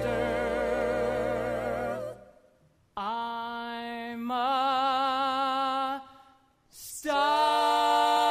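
Musical-theatre singers holding long notes with vibrato, with accompaniment, from a Broadway cast recording. The singing breaks off twice into brief silence and comes back each time, the last entry a long held note near the end.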